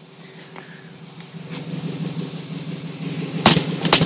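Scion tC's 2.4-litre four-cylinder engine idling steadily, getting louder partway through, with three sharp knocks about three and a half seconds in.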